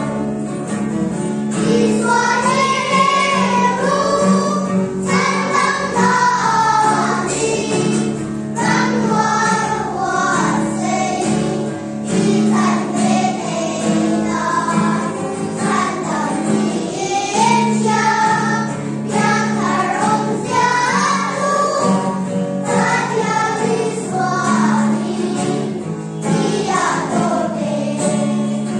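A church choir singing a song, with many voices carrying a melody over steady held low chords from the accompaniment.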